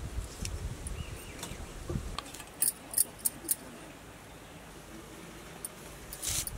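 A handful of sharp clicks and taps, loudest in a cluster of four about halfway through and a few more near the end, over a low outdoor background.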